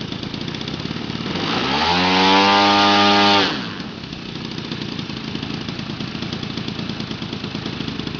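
MVVS 58 single-cylinder two-stroke petrol engine on an RC model airplane running at idle, then opened up to full throttle about one and a half seconds in, held there briefly, and throttled back to idle about two seconds later.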